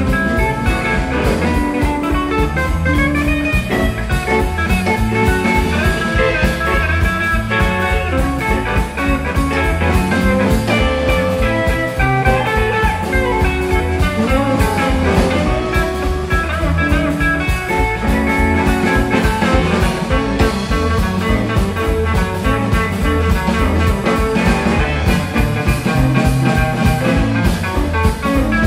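Live blues-rock band playing an instrumental boogie: two electric guitars over electric bass and a steady drum-kit beat.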